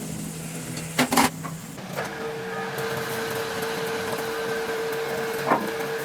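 Two sharp metal clanks about a second in, then a machine tool's motor starts and runs with a steady whine, as the broken excavator wheel hub is set up in the machine for cutting; another clank comes near the end.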